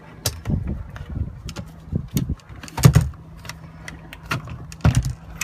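Clicks and knocks of camper-van cupboard doors and a push-button door catch being handled, the loudest knock about three seconds in, over a steady low hum.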